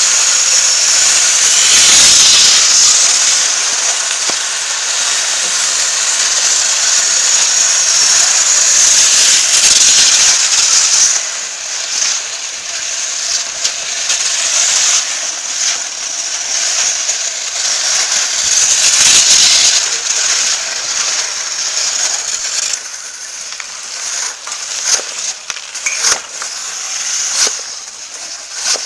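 Wide ice scraper pushed across rink ice: a long, loud scrape with a hissing edge for the first ten seconds or so, and a second long scrape later on. In the last few seconds come scattered sharp clicks of hockey sticks and a puck on the ice.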